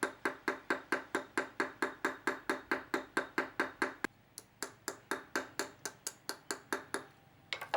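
Small hammer tapping steel pins, peening them over to tighten a folding fork's handle joints: quick light strikes about five a second, each with a short metallic ring. There is a brief pause about four seconds in, then the tapping resumes and ends with two last taps.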